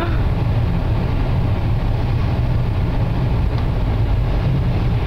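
Car engine running with a steady low drone while the car sits stuck in deep snow, not moving.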